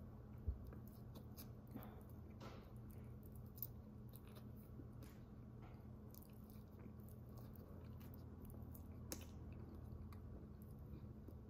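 A person chewing a mouthful of White Castle cheeseburger slider with the mouth closed: faint soft clicks and smacks over a steady low hum.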